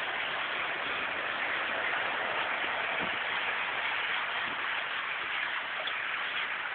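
Steady hiss of heavy rain falling onto standing floodwater, with a couple of faint soft knocks midway.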